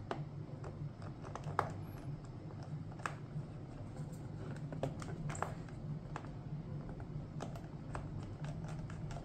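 Small screwdriver driving a screw into a 3D-printed plastic enclosure: scattered faint clicks and scrapes, over a steady low hum.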